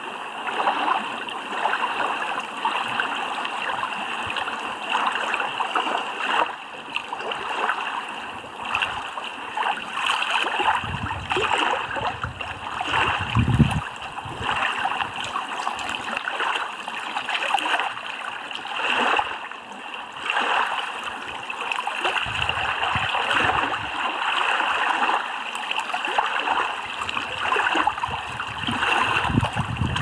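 Small waves lapping and splashing against a rocky lakeshore, a steady flickering wash of water. A few short low rumbles break in now and then, the loudest about halfway through.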